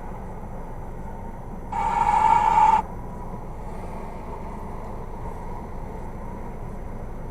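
Steady road and engine noise of a car driving. About two seconds in, a single loud, steady tone sounds for about a second, then stops abruptly.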